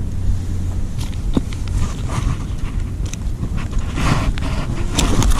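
Wind rumbling on the microphone, with scattered clicks and knocks of the fish and gear being handled and a short rustle about four seconds in.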